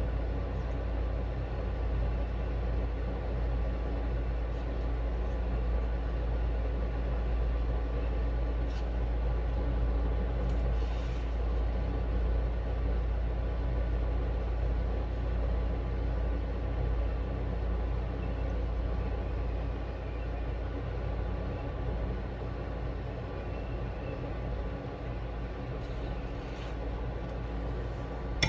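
Steady low rumble with a constant faint hum, broken by a few faint clicks.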